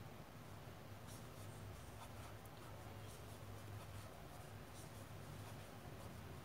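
Faint, irregular scratching and rustling of a crochet hook working plush amigurumi yarn as single crochet stitches are made, over a low steady hum.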